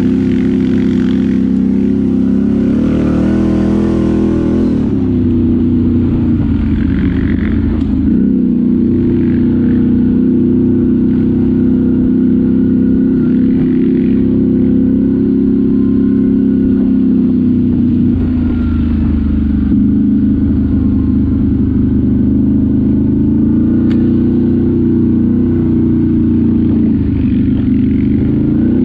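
ATV engine running under way at fairly steady revs, with a brief rise and fall in revs about three to four seconds in.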